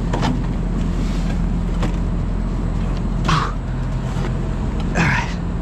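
A steady low mechanical hum runs throughout, with a few short scrapes and knocks as the old compressor is worked loose and pulled out of the outdoor unit.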